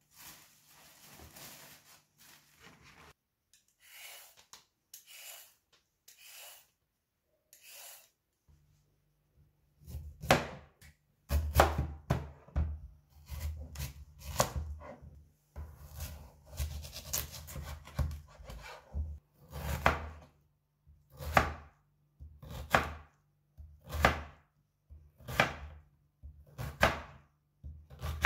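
A chef's knife slicing through a firm peeled white vegetable on a plastic cutting board, each cut ending in a knock on the board. The cuts come in quick runs at first, then settle to one slice about every second and a half; the knife is dull and needs sharpening. Before the cutting begins, a plastic bread bag rustles briefly.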